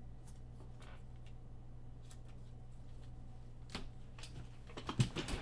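Scattered taps on a computer keyboard, sparse at first and busier near the end, over a steady low electrical hum.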